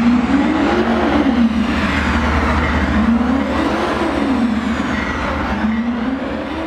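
Car engine revving up and down again and again during a smoky burnout or donuts, over the hiss of spinning tyres, gradually fading near the end.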